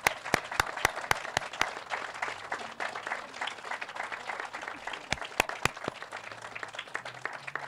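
Audience applauding. Loud, close claps from someone at the podium microphone come about four a second for the first second and a half, with a few more a little past the five-second mark. The applause thins out toward the end.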